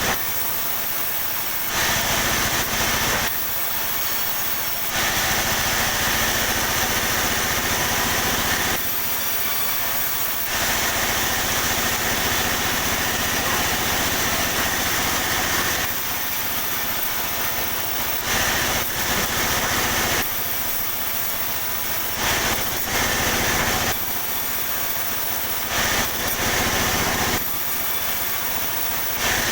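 Sawmill saw running steadily while cutting pine timber, with repeated louder stretches of a few seconds each as the blade passes through the wood.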